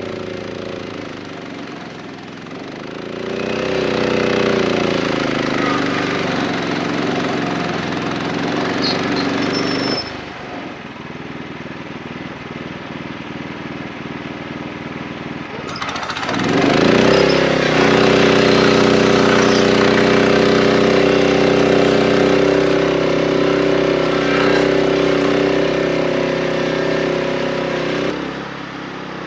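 Wood-Mizer LX25 band sawmill's engine running at speed as the band blade cuts through a hickory log. Its pitch sags briefly under load and recovers. The sound drops sharply about ten seconds in, then about sixteen seconds in the engine revs up again and runs steadily until just before the end.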